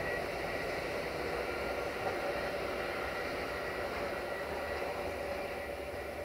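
Small rail maintenance vehicle and its flat wagon running away along the track: steady engine and wheel noise with a faint high whine, slowly fading.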